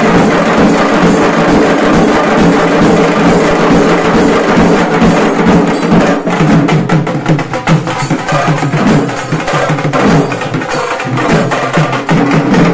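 A dhol-tasa band drumming loudly: big barrel-shaped dhol drums and small stick-beaten tasa drums playing a fast, dense rhythm. About halfway through, the beat opens out into sparser, sharper strokes.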